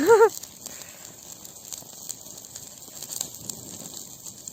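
Small campfire hissing and sizzling steadily, with faint scattered crackles. A short voiced sound is heard at the very start.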